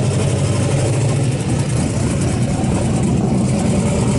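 Drag race car engine idling steadily, a loud low-pitched running sound with no revving.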